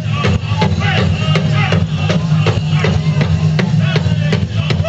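Powwow drum group singing a Grand Entry song: a big drum struck in a steady beat about two and a half times a second under high-pitched group singing.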